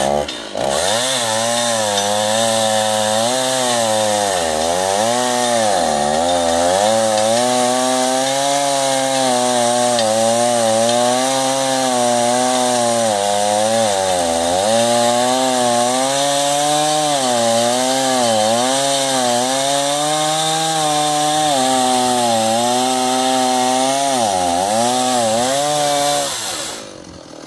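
Chainsaw running at full throttle in an Alaskan chainsaw mill, ripping a log lengthwise. The engine note wavers up and down as the bar is loaded and eased through the cut, and drops away near the end when the throttle is let off.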